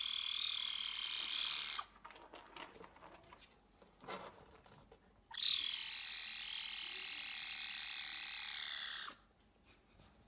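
Caracal kitten calling: two long, high-pitched cries. The first lasts about two seconds; the second starts a little past five seconds in and is held for nearly four seconds.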